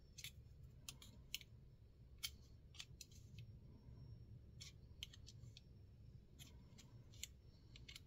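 Faint, irregular small clicks and light scrapes from a steel digital caliper's jaws sliding and tapping against a small folding pocket knife as it is measured.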